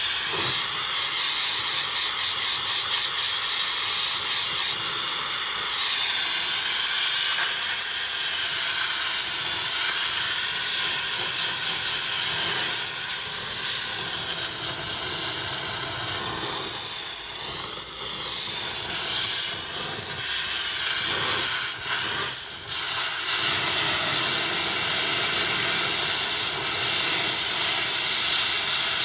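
Oxy-acetylene torch with a brazing tip burning with a steady hiss as it heats a freshly welded cast iron manifold, burning off the soot. The hiss wavers and dips briefly a few times in the second half.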